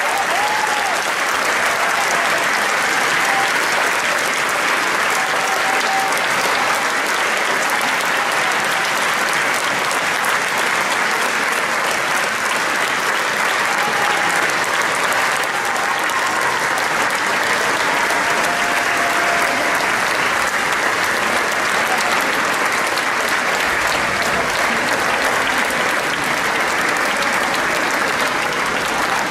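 Large standing audience applauding, a dense, steady sound of many hands clapping, with a few voices calling out over it.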